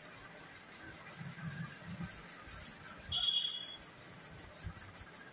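A short, steady, high-pitched beep lasting a little over half a second, about three seconds in, over faint low sounds at the table.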